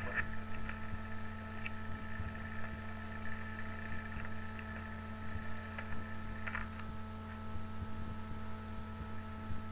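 Steady low hum, like mains or appliance hum, with a few faint brief sounds over it.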